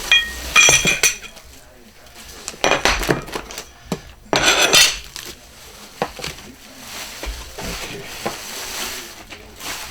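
Aluminium CNC kit parts (plates and brackets) clinking and knocking together as they are handled, with a ringing clink at the start and crinkling of packaging in between.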